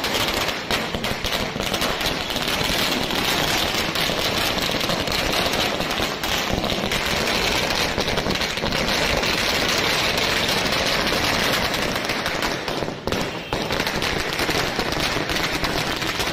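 A long string of firecrackers bursting on the road: a dense, continuous run of rapid cracks and bangs that slackens briefly about thirteen seconds in, then carries on.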